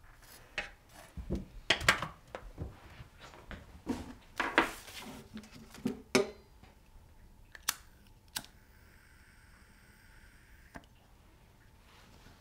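Small hard objects being handled and set down with scattered clicks and knocks. Then two sharp clicks and about two seconds of steady hiss from a lighter flame as a candle is lit, ending in a click.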